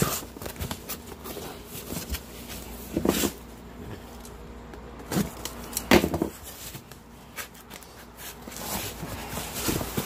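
Cardboard boxes being handled and a cardboard box opened by hand: rustling and scraping of cardboard, with a few louder knocks about three, five and six seconds in.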